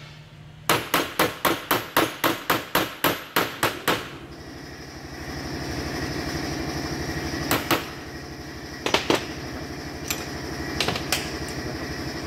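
A hammer striking a tool on the seized nut of a pickup's radiator fan clutch to knock it loose: about thirteen quick metallic blows, about four a second. They stop after about three seconds. Then a steady mechanical running sound follows, with a few single clanks.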